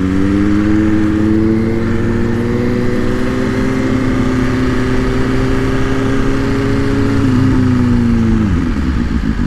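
2023 BMW S1000RR's inline-four engine running under throttle, its pitch climbing slowly over the first few seconds, holding steady, then falling away near the end as the throttle closes.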